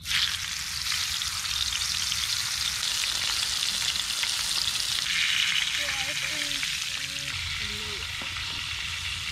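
Catfish fillet frying in peanut oil in a cast-iron skillet. A loud sizzle starts suddenly as the fillet goes into the hot oil, then carries on steadily.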